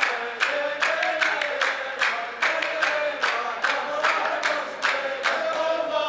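A row of men chanting the poet's verse together in unison, with sharp hand claps keeping time at about two and a half claps a second: the clapping lines (sufuf) of a Saudi muhawara.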